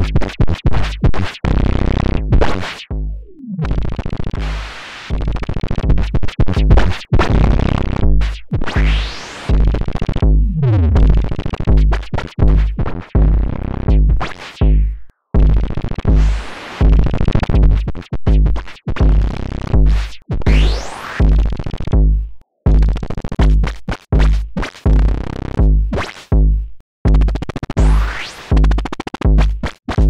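Modular synthesizer patch: gated bursts of white noise through a parametric EQ whose band is swept by an LFO, giving whistling sweeps that rise and fall, over a steady synthesized kick drum at about two beats a second.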